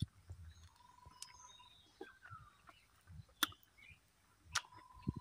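Faint bird calls: short whistled notes and one falling note, with two sharp clicks from eating jackfruit in the second half, about a second apart.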